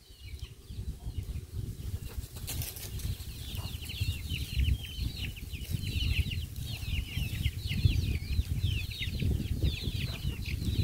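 Wind buffeting the microphone in gusts, with many short, high bird chirps coming thick and fast from about two and a half seconds in.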